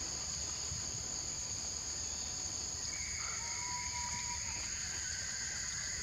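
Insects droning steadily in a continuous high-pitched buzz, with a few faint, thin whistled tones coming in about halfway through.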